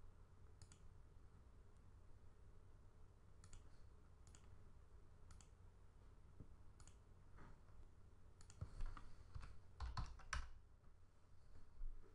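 Faint, scattered clicks of a computer mouse being operated: a few spread out, then a quicker run of clicks about two-thirds of the way through and one more near the end, over a low steady hum.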